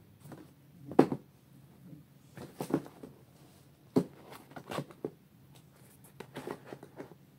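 Toiletries being packed by hand into a fabric bag: rustling with scattered knocks and clicks of plastic containers, the sharpest about a second in and about four seconds in.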